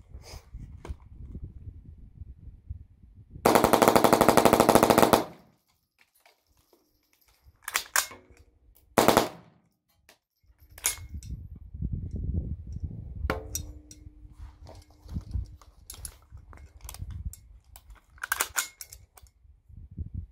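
Short-barrelled AR with a CMMG .22 LR conversion kit and a Franklin Armory binary trigger firing: a fast string of shots lasting under two seconds about three and a half seconds in, then single shots spaced several seconds apart.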